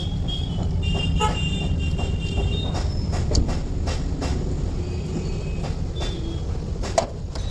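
Light metallic clicks and taps as a gearbox main shaft and its synchronizer hub are handled, with a sharp click about seven seconds in, over a steady low rumble.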